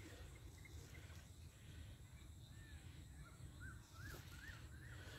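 Faint bird calls: short arched chirps, a quick run of them in the second half, over a low rumble of background noise.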